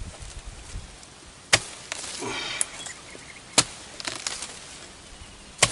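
Sharp blows of a pole-mounted harvesting chisel jabbing into the stalks at the crown of an oil palm, three hard strikes about two seconds apart, with a lighter knock between the first two.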